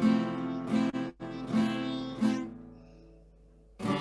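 Acoustic guitar strummed slowly, four even down-strums about three-quarters of a second apart. The chord then rings out and fades until the next strum near the end. It is an F-to-G chord change being practised at four beats per chord, heard over a video call, with a brief cut in the sound about a second in.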